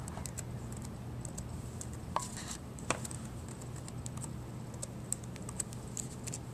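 Keys clicking on a Dell Latitude D531 laptop keyboard as login details are typed: irregular taps, with two louder key presses about two and three seconds in, over a low steady hum.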